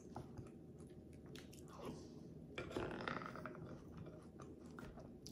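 Faint chewing and mouth noises of a person eating, with a few soft irregular crunches.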